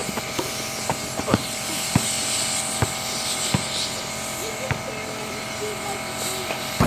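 A ball slapping and thudding several times at irregular intervals as it is thrown, caught and bounced on an asphalt driveway, over a steady mechanical hum.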